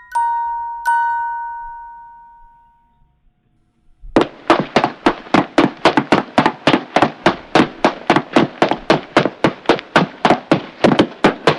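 Two bright chime notes, struck once each and left to ring and fade. After a short silence comes a fast, even run of sharp knocks, about four a second.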